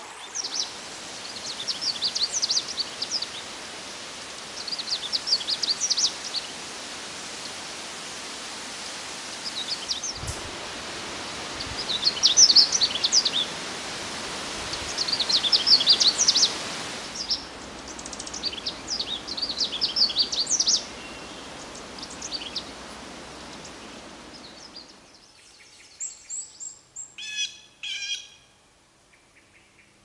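A Canada warbler sings short, quick, jumbled high phrases, one every three seconds or so, over a steady rushing background noise. Near the end the background drops away and a different bird sings a brief series of clear notes.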